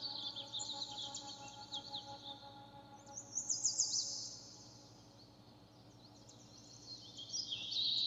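Birds singing in fast, high chirping trills over a soft, sustained ambient music drone. The chirping is loudest about halfway through, dies down for a couple of seconds, then picks up again near the end.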